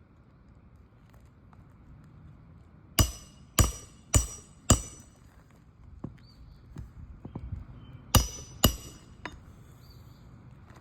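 Hand hammer driving roofing nails through an asphalt shingle: four quick ringing strikes about three seconds in, then two more about eight seconds in, with a few lighter taps between.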